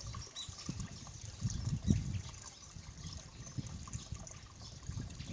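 Small brook trickling and babbling over stones, with uneven low rumbles, the strongest a little under two seconds in.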